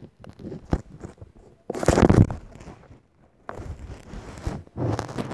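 Handling noise: irregular scraping and rustling bursts from something rubbing right against a covered microphone. The loudest burst comes about two seconds in.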